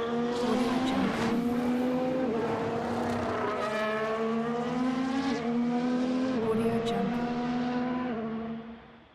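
Formula 1 car engine running at high revs, its pitch holding, stepping up and dropping back several times, then fading out near the end.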